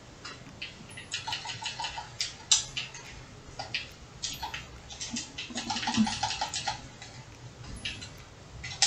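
Colored pencil scratching on sketchbook paper in quick short strokes, some in rapid back-and-forth runs.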